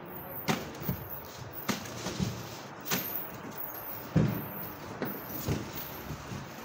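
Rummaging by hand through packaged food inside a plastic wheelie bin: rustling, with five sharp knocks spaced a little over a second apart, the loudest about four seconds in.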